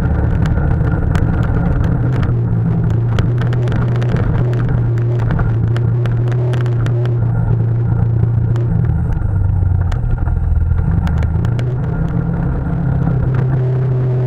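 ATV (quad) engine running as it rides over a snowy trail, a steady drone that drops in pitch about nine seconds in and picks back up near the end. Frequent short knocks and clicks from the ride over bumps.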